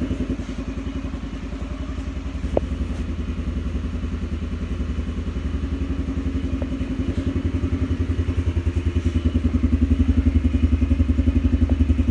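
Air-cooled 150cc single-cylinder four-stroke engine of a Coolster ATV idling steadily with an even, rapid putter, a little louder over the last few seconds.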